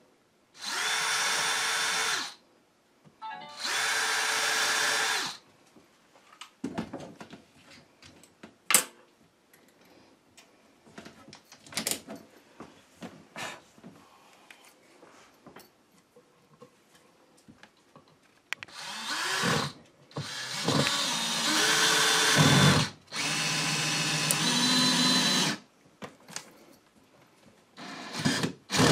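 Cordless drill running in short bursts into the wooden window frame and sill: two runs of about two seconds near the start, and three longer runs later on. In between there are scattered small clicks and knocks, and the motor's pitch sags under load in one of the later runs.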